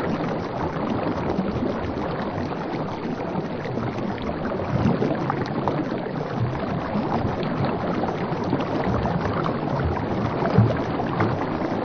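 Water sloshing and lapping around a moving coracle on a river, a steady rush of small splashes, with one brief louder splash or bump about ten and a half seconds in.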